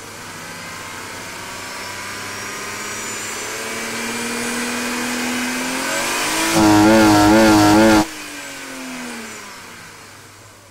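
E36 BMW engine breathing through a freshly fitted Dinan cold air intake, revved slowly and steadily higher for about six seconds. It is held at the top for a second and a half, loudest there with its pitch wavering, then the throttle is released and the revs fall back toward idle.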